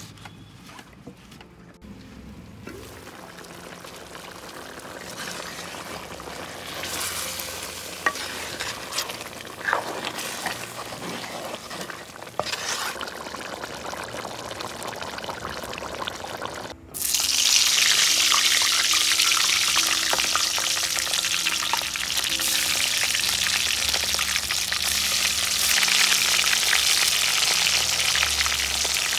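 Whole small eggplants deep-frying in hot oil in a wok: a loud, steady sizzle that starts suddenly a little past halfway. Before it come quieter cooking sounds of curry being mixed and stirred.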